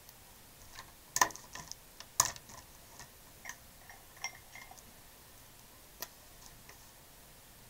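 Light clicks and taps of plastic art pens being picked up and set down on a desk, a handful of them, the two sharpest about a second and two seconds in.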